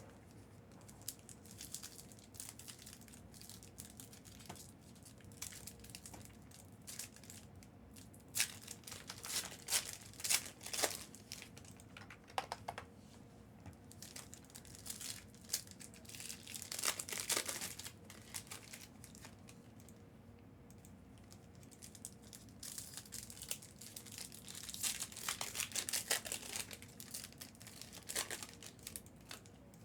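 Plastic wrapping being handled, crinkling and tearing in irregular bursts, with a quieter stretch a little past the middle, as trading-card boxes and packs are unwrapped.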